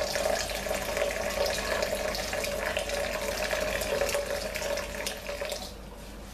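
Kitchen tap running into a metal colander of parsley in a stainless-steel sink, a steady splashing flow with small splashes as hands sort the wet stems. The flow noise dips briefly near the end.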